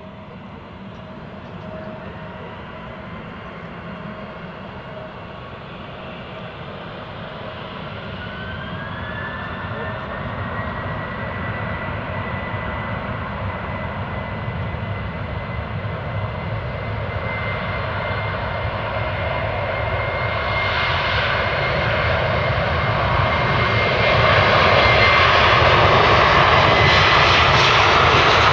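Lockheed C-130H-30 Hercules on approach to land, its four Allison T56 turboprop engines running and growing steadily louder as it nears. A high whine rises in pitch about eight seconds in, then holds steady.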